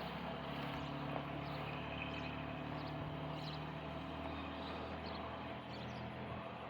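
An engine or motor running steadily with a low hum, over a constant background noise.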